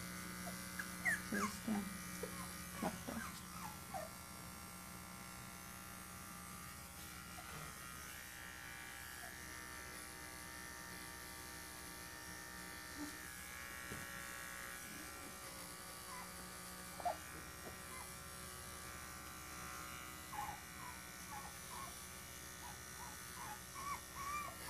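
Cordless electric pet clipper running with a steady hum while trimming a three-week-old poodle puppy's fur. The puppy gives short, high squeaks and whimpers near the start and again near the end.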